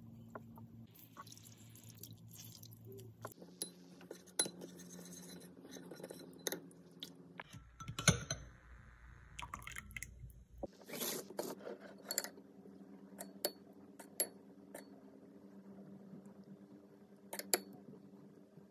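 Metal spoon clinking and scraping in a ceramic bowl of oil-and-spice marinade, then tapping on a metal sheet pan as the marinade is spooned over raw beef: scattered sharp clicks, loudest about eight seconds in, over a faint low hum.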